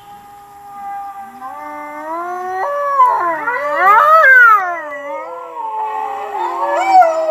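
A pack of wolves howling in chorus: several howls overlap, each gliding up and down in pitch, building to the loudest point about three to four seconds in.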